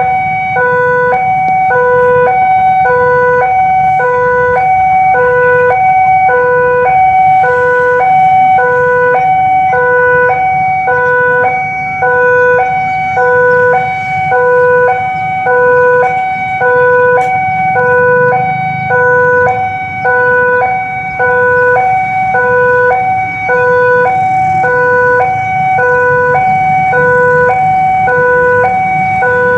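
Railway level-crossing warning alarm sounding its electronic two-tone chime, a lower and a higher tone alternating about once a second without a break: the signal that the crossing is closing for an approaching train. A low rumble runs underneath.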